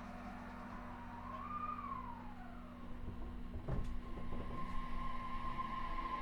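E233 series 3000 electric train's motors and VVVF inverter whining as it gathers speed, a thin tone that glides up and down, then holds steady with a second tone starting to climb, over a low steady hum. One dull knock sounds about halfway through.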